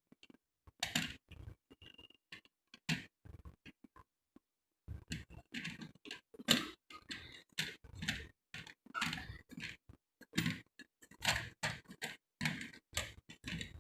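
Irregular clicks and taps of slate pencils knocking against each other as they are sorted through by hand, with a short pause about four seconds in.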